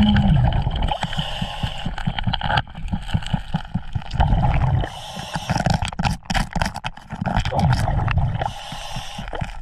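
Muffled underwater rushing and gurgling, with many small clicks and knocks of gravel, as a hand fans water through a crack in the bedrock to clear it.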